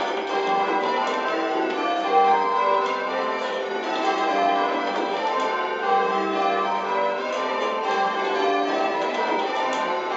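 Eight church bells change ringing Spliced Surprise Major, heard from the ringing chamber below them. The bells strike one after another in a continuous, evenly paced stream, their order shifting from row to row.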